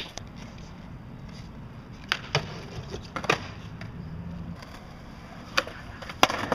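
Skateboard wheels rolling on concrete with a steady low rumble, broken by several sharp clacks of the board. The loudest clack comes near the end, as a skater lands an ollie up onto a concrete ledge.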